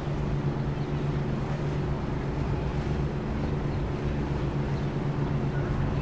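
River harbour ambience: a steady low engine drone from a boat, with faint occasional bird chirps above it.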